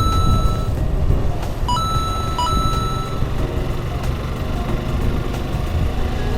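Suzuki Gixxer SF single-cylinder motorcycle riding, with a steady low rumble of engine and wind on the camera microphone. Two short electronic beeps, each a brief blip rising to a higher tone, come about a second and a half in and again just after two seconds, the second held longer.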